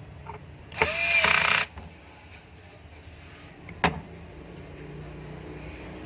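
Metal-on-metal tool work while the ceiling fan's cover screws are tightened: a loud scraping burst lasting under a second about a second in, and a single sharp click near four seconds.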